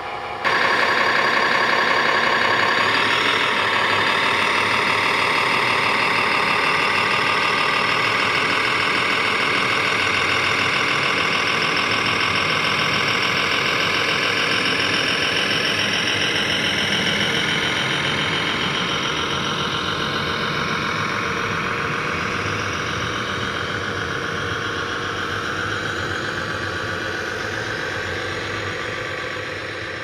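RC model Komatsu HD405 dump truck's engine sound, running steadily. It comes in abruptly about half a second in and slowly fades.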